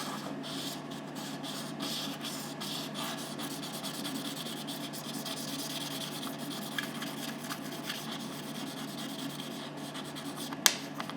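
Fire opal stone rubbed back and forth on 3000-grit sandpaper, a soft steady scratching for the final polishing-stage sanding. A single sharp tap near the end.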